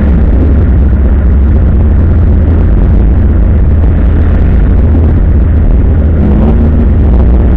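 Opel Commodore A race car's engine running hard at speed along a straight and into a bend, heard loud from inside the cabin.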